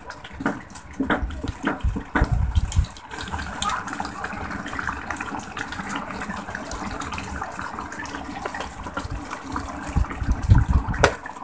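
A spatula stirs and scrapes chicken curry in a marble-coated pot, with a few short knocks. It then stops, and the curry simmers on the gas flame with a steady bubbling, crackling hiss. More knocks and handling near the end.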